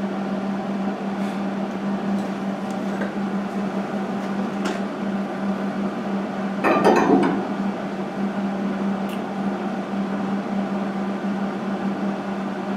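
Steady electrical hum of welding equipment, with one short, loud crackling burst of welding about seven seconds in and a few faint clicks.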